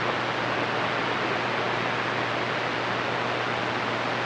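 CB radio receiver static: steady band-noise hiss with an open squelch on the 11-metre band, with a faint low hum under it, while no station is coming back.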